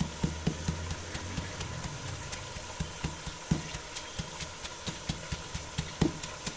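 Wooden pestle pounding garlic cloves with salt in a mortar, crushing them to a paste: a steady run of dull knocks, about three a second.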